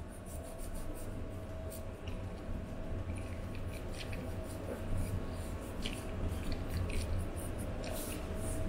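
Soft scratching and small irregular clicks of a plastic toothbrush scrubbing a dog's teeth, over a low rumble of handling noise.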